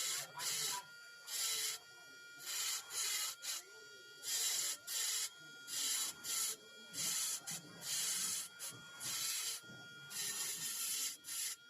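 Hand tool scraping and abrading a wooden carving in short strokes, unevenly about one to two a second.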